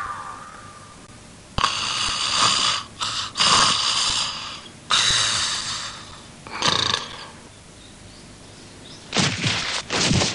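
Cartoon snoring from a man asleep in bed: a series of loud snores about a second and a half apart, dying away after about seven seconds. Near the end comes a short burst of sharper clattering sounds.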